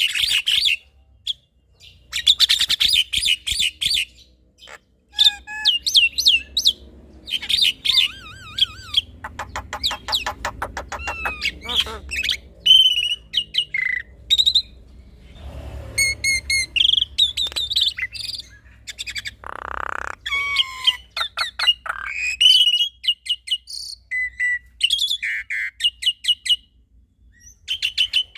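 A male black-winged starling and a female Javan myna singing in a duet: rapid, varied chirps, whistles and trills in quick bursts with short pauses, including a wavering whistle and a few harsh, buzzy notes.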